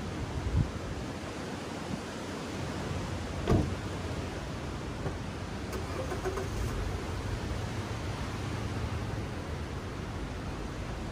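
Steady outdoor background noise with a low rumble and a few dull thumps, the loudest about three and a half seconds in.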